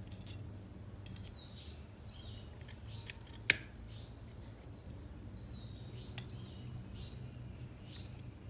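Small metal pistol parts clicking as they are handled during disassembly, with one sharp click about three and a half seconds in and a few lighter ones, over repeated bird chirps.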